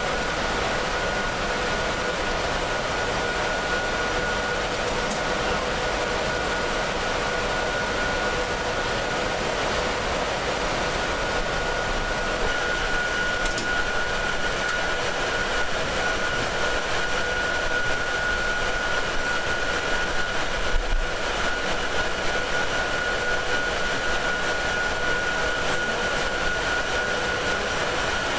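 Steady machine hum, like fans and air handling, with a couple of constant whining tones over an even rush of noise and an occasional faint tick.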